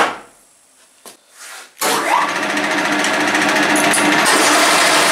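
1K62 screw-cutting lathe's spindle drive and gearbox started up, coming on abruptly about two seconds in, then running steadily with a dense mechanical rattle and hum. A couple of faint clicks come just before it.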